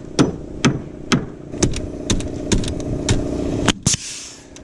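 Framing hammer knocking a wooden roof truss into place, a series of sharp ringing blows about two a second, with a steady engine hum underneath. Near the end a DeWalt pneumatic framing nailer fires once with a short hiss of air.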